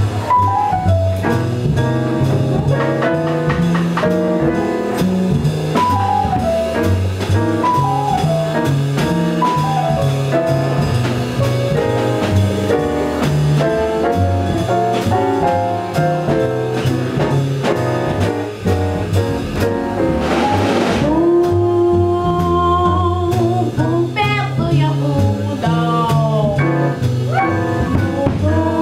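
Live jazz combo of piano, upright bass and drum kit playing an instrumental intro; about twenty seconds in, a woman's voice comes in over the band with long held notes.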